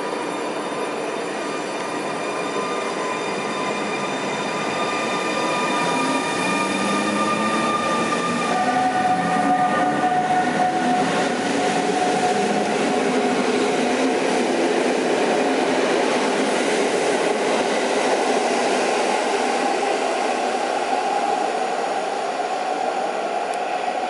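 EU160 (Newag Griffin) electric locomotive hauling a passenger train past the platform. Its drive gives whining tones that shift and glide upward, over the rumble of wheels on rail. The sound swells as the locomotive and coaches pass, loudest midway.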